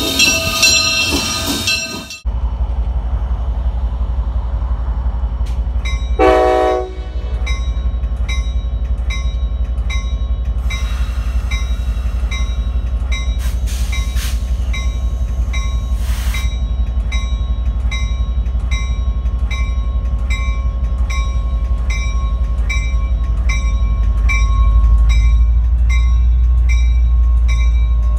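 A train running by with a steady low rumble and regular clicking of wheels over rail joints, a little under two clicks a second. It opens with a loud multi-tone train horn that cuts off abruptly about two seconds in, and a short horn blast sounds about six seconds in.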